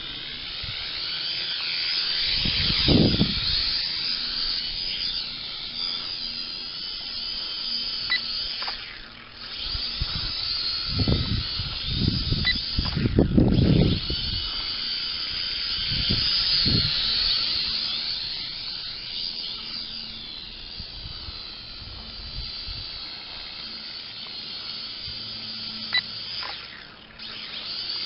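Small Syma toy quadcopter's motors and propellers whining as it flies, the pitch rising and falling with the throttle and dipping briefly a few times. A few low rumbles come in around three seconds in and again near the middle.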